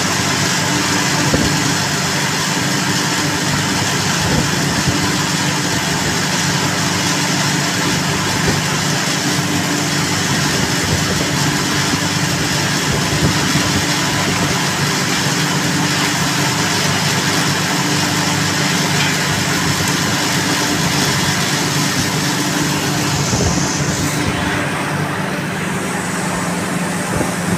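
Steady, loud drone of running machinery: a continuous low hum under a wide hiss. The hiss drops away about 24 seconds in.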